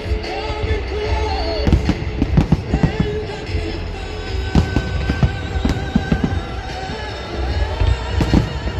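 Fireworks bursting in quick succession, a steady run of sharp bangs and crackles, with music playing underneath.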